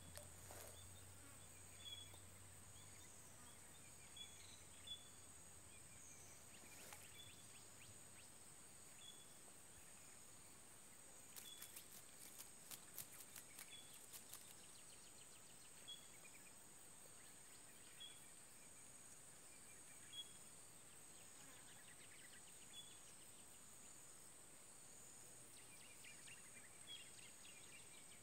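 Faint outdoor ambience: a steady high-pitched insect drone, with short high chirps repeating every second or two and a quick run of clicks about halfway through.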